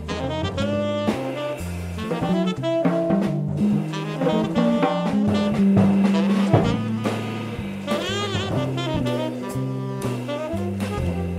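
A live jazz trio of saxophone, electric bass and drum kit. The saxophone plays a busy lead line of quick notes and bends over moving bass notes, with cymbal and drum strokes throughout.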